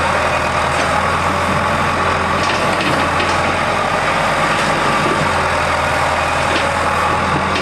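A heavy engine running steadily, likely construction machinery or a truck idling on the building site.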